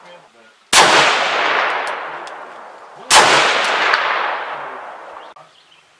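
Two rifle shots from a 6.5 Grendel AR-style rifle, about two and a half seconds apart, each followed by a long echo that fades away over about two seconds.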